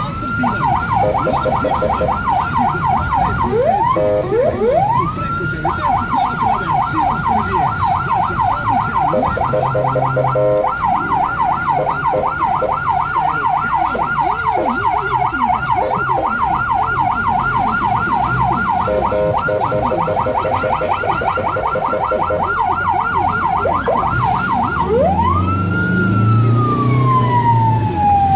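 Ambulance electronic siren heard from inside the cab. It mostly runs a rapid yelp, is broken about four seconds in by a couple of quick upward sweeps, and switches to a slow rising and falling wail near the end.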